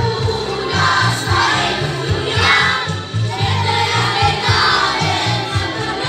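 A group of children singing together over loud backing music with a steady, pulsing beat.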